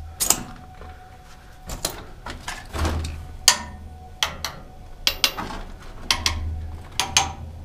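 Irregular knocks, clicks and scrapes, about a dozen, spread unevenly, with a short low rumble three times.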